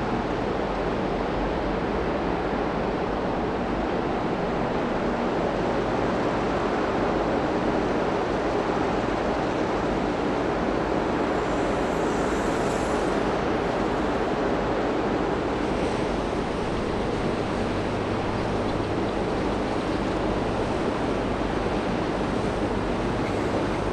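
Steady harbour background: the low, even rumble of tugboat and ship engines mixed with the wash of water and some wind.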